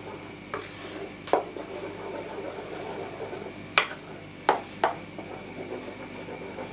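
Wooden spoon stirring curd mixture in a glass bowl, knocking sharply against the glass about five times, over a steady hiss.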